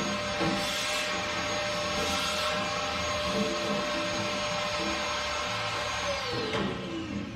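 Vacuum cleaner running steadily with a high whine as its hose nozzle sucks sanding dust and debris out of a steel car fuel tank. About six seconds in, the motor winds down and the whine falls in pitch.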